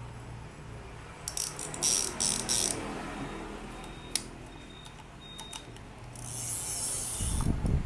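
Daiwa SS9000 spinning reel worked by hand with its bait runner switched on: clusters of ratcheting clicks from the reel's mechanism, a few single clicks, then a short hiss about six seconds in and a low handling knock at the end.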